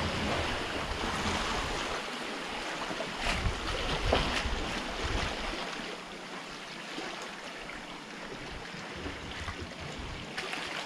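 Water washing against shoreline rocks: a steady, noisy wash, with a couple of faint clicks about three and four seconds in.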